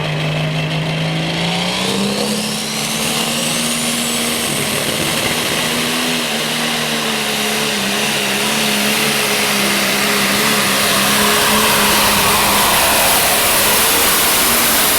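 A modified farm pulling tractor running flat out on its pull. The engine note steps up about two seconds in and then holds steady, and a high turbocharger whistle climbs over the first few seconds.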